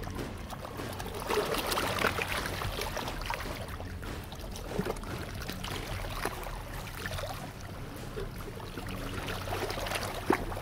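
Small waves of Lake Baikal lapping and splashing against a rocky shore in an irregular wash of water, busiest about two seconds in, with one sharp louder slap near the end.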